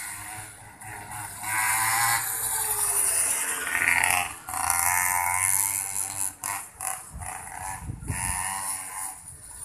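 Mini moto (pocket bike) engine revving high as the bike laps the track, its pitch rising and falling with the throttle. It grows loud and is loudest about four to five seconds in as it passes close, then fades away.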